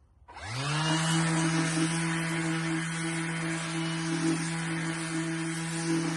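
An electric power tool's motor switching on, spinning up over about half a second, then running at a steady speed with a constant hum and hiss, with no clear change under load.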